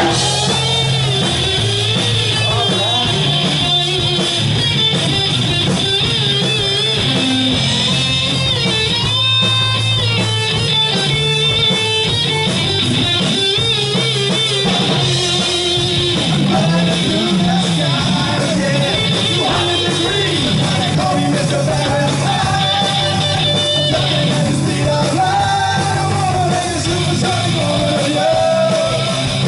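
Live punk rock band playing a song: electric guitar, bass guitar and drum kit, with a man singing over parts of it.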